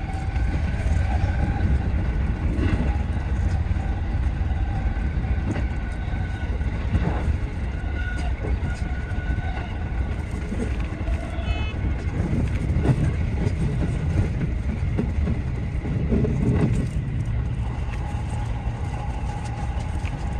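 JR West 207 series 1000-subseries electric train running at speed, heard from the driver's cab: a steady rumble of wheels on rail with a faint steady whine on top.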